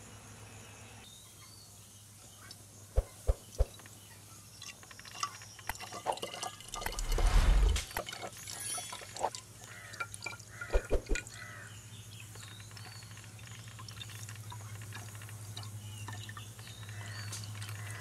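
Water poured into a glass bottle, a short gush midway that is the loudest part. Sharp clicks come three in quick succession about three seconds in and again in a cluster near eleven seconds.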